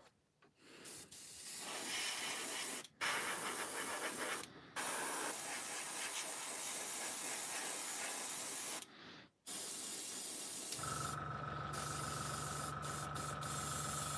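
Airbrush spraying red lacquer paint in hissing stretches, broken by short pauses where the trigger is let off. About eleven seconds in, a steady hum with a thin whine starts up beneath the spray.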